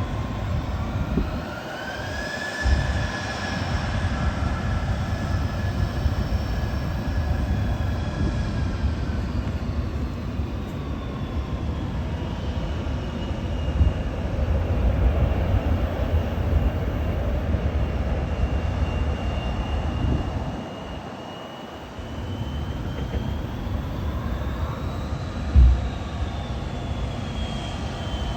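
Airplane engines running with a steady rumble and whining tones. A whine rises about two seconds in, holds, then falls away, and another swells and fades near the end. There are two brief thumps and a short quieter stretch about three-quarters through.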